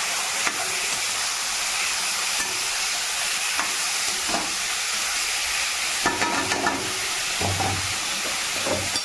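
Chicken pieces sizzling in hot oil in a kadhai, a steady hiss, with the metal spatula now and then scraping and knocking against the pan as the meat is stirred; the knocks come more often in the last few seconds.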